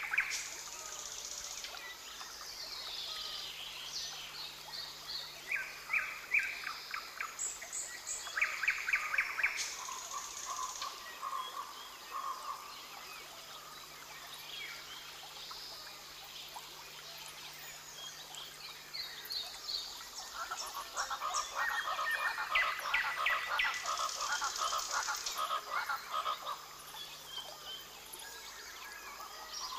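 Rainforest ambience of frogs and birds calling: repeated short pulsed calls alternate with high whistles and gliding notes. About twenty seconds in, the calling thickens into a denser chorus for several seconds.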